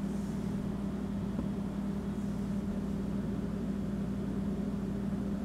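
Cuisinart programmable electric tea kettle humming steadily with a light hiss while tea steeps in its infuser basket.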